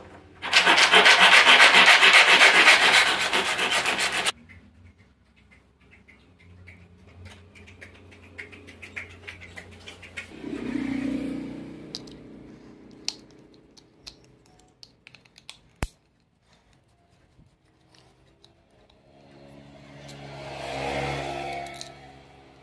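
Handsaw cutting through a wooden block, loud, then stopping abruptly about four seconds in. After that come faint small clicks and scrapes of a screwdriver on the screw of a tape measure's metal belt clip, with two brief swells of sound near the middle and near the end.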